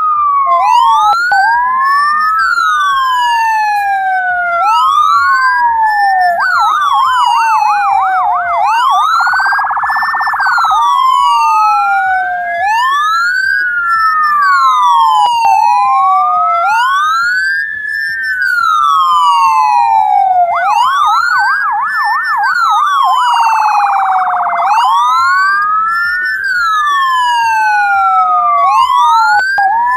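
Ambulance electronic siren. It wails, with overlapping sweeps rising and falling roughly every four seconds, and twice switches to a rapid yelp and then an even faster warble for a few seconds before going back to the wail.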